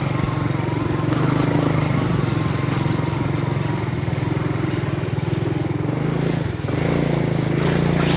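Motorcycle engine running steadily at low revs, with a short dip and change in pitch about six and a half seconds in, and a brief click a little before it.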